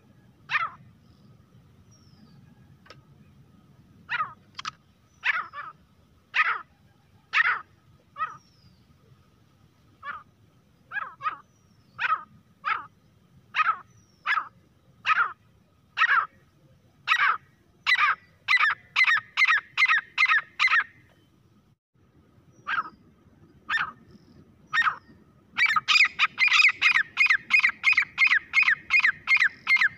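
Grey francolin calling: a series of short, sharp notes that starts sparse and quickens into a rapid run. After a short pause, a faster, louder burst of notes comes near the end.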